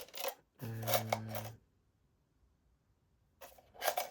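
Small metal tools clicking and rattling as they are handled and rummaged through. There are two spells of it with a stretch of silence between, and the first carries a brief low buzz.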